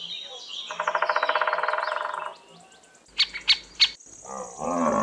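Woodpecker calling: a fast pulsing call that lasts about a second and a half, with high chirps of birds above it. Then come three sharp clicks, and near the end a low call of an African buffalo begins.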